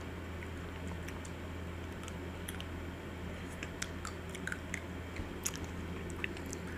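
Faint mouth sounds of eating chocolate-and-almond-coated ice cream bars: scattered lip smacks and small chewing clicks, more frequent in the second half, over a steady low hum.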